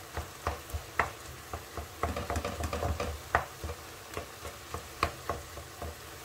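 Wooden spoon scraping and knocking against a nonstick frying pan as cooked ground beef is stirred: irregular strokes a few times a second over a faint steady sizzle. The stirring stops near the end.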